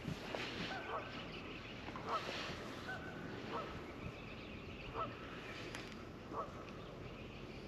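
Faint, short bird calls repeated about once every second or so.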